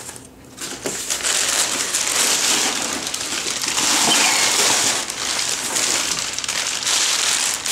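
Crumpled brown kraft packing paper crinkling and rustling as hands dig through it and pull it out of a cardboard shipping box. A dense, continuous crackle that starts about half a second in.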